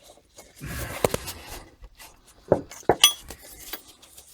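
Metal tools and parts clinking and knocking together as the loosened reverse light switch is handled by hand and taken out of the ring spanner and socket: a few sharp clinks, one about three seconds in ringing briefly.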